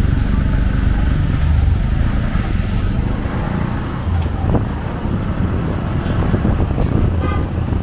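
Street traffic: cars and motorcycles running on a city street, a steady low rumble, with a brief high-pitched pulsing sound near the end.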